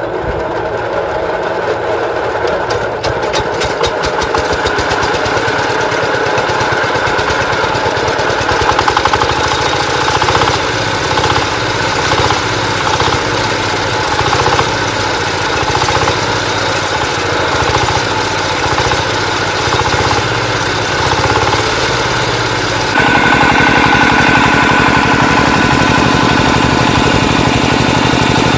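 Walk-behind tractor's single-cylinder diesel engine running with a steady knocking beat. Near the end it suddenly gets louder and higher in pitch.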